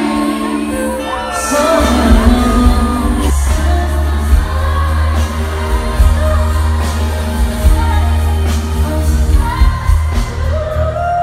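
Live pop concert through an arena sound system: a female singer performing over a backing track, with a heavy bass line coming in about two seconds in.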